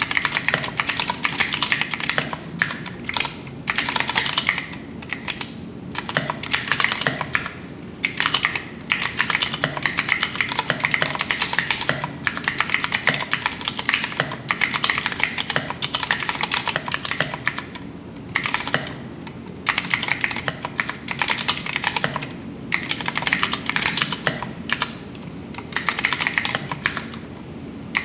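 Typing on a Vortex Poker3 60% mechanical keyboard with tactile Cherry MX Brown switches and tall SA-profile keycaps: fast runs of keystrokes with brief pauses between them.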